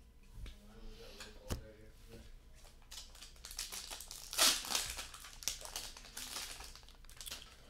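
A foil trading-card pack wrapper crinkling and tearing as it is opened by hand, the crinkling loudest about four and a half seconds in. A single sharp click comes about a second and a half in.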